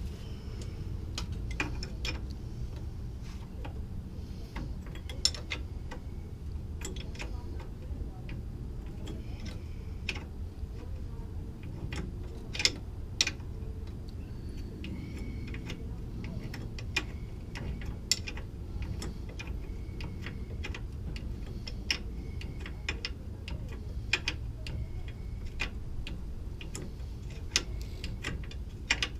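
Irregular sharp metallic clicks and taps of hand tools working on the truck's front suspension, over a steady low hum.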